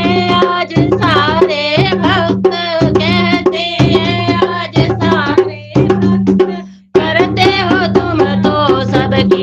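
Hindi devotional bhajan music: tabla-style hand-drum strokes and a winding melodic line over a steady drone. It cuts out briefly about seven seconds in, then starts again.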